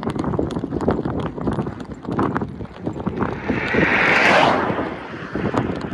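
Large cloth flag on a pole flapping and snapping hard in strong wind, a rapid irregular clatter over rushing wind noise. A louder rush of noise swells and fades about three to five seconds in.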